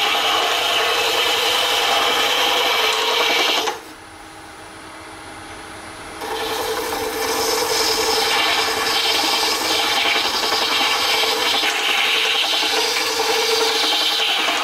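A lathe tool cuts into the end of a spinning cast Alumilite resin globe, hollowing it with a steady rasping scrape. About four seconds in the cut stops for around two seconds, leaving only the lathe's faint running hum, then it starts again.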